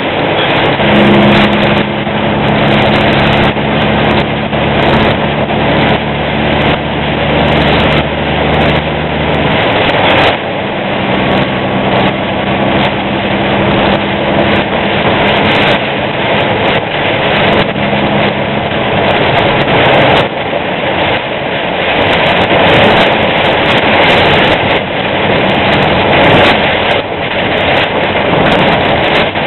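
Semi truck driving in heavy rain: a steady, loud rush of rain and tyre spray over the hum of the truck's diesel engine. The engine hum fades about two-thirds of the way through, leaving the rush.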